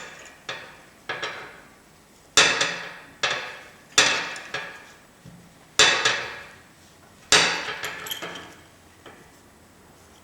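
Hammer blows on metal, about a dozen sharp, irregularly spaced strikes, each ringing briefly before dying away, as small press-fit spacers are driven into drilled holes in the surface grinder's cast part.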